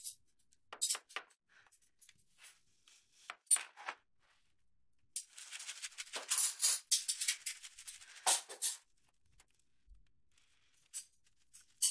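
A pouch of dried catnip being handled and shaken: a few short crinkles and rustles, then about three and a half seconds of continuous rattling and rustling starting about five seconds in.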